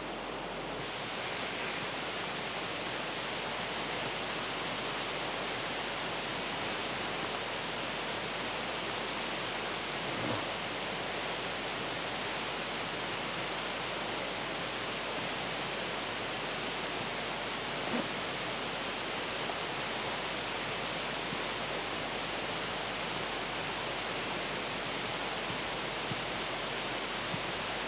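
Steady rushing of a river running over rapids, an even hiss that swells up in the first second and holds level, with a few faint knocks.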